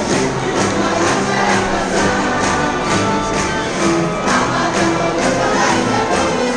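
Marcha popular music: a group of marchers singing together over a live band, with a steady beat of about two percussion strikes a second.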